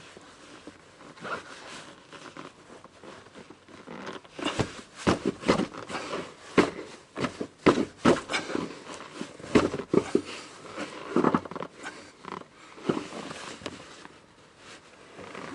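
Irregular knocks, clunks and rustling of a car's rear seat cushion being worked loose by hand, busiest from about four seconds in until about thirteen seconds.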